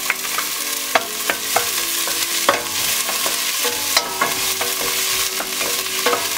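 Garlic and onion sizzling in hot oil in a stainless steel pot. A wooden spatula stirs them, knocking and scraping against the pot several times.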